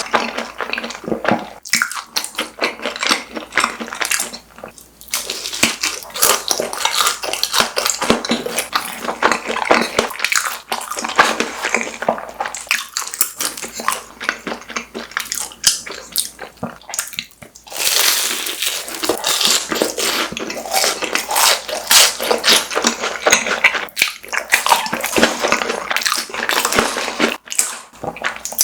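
Close-miked eating of crispy fried snacks: continuous crunching and wet chewing, with dense crackling bites that come and go in clusters.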